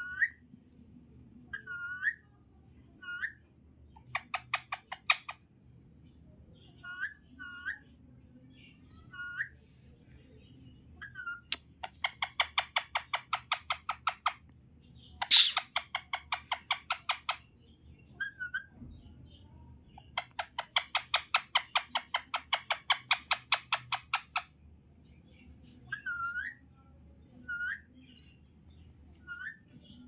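Green parakeet calling: several bursts of fast, evenly pulsed chattering, each lasting one to four seconds, alternating with short single squeaky chirps. The loudest call comes about halfway through.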